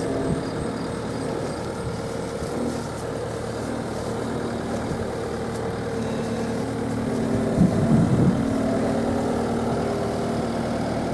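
Case SV280 skid steer loader's diesel engine running steadily as the machine drives, with a brief louder stretch about eight seconds in.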